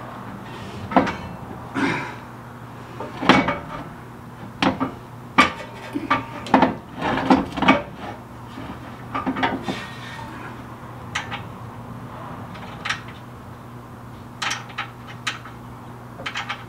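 Metal winch mounting plate and its bolts and nuts clanking and clinking irregularly against a pickup's steel frame as the plate is worked up into place and nuts are fitted to hold it. The knocks come thickest in the first half and more sparsely after.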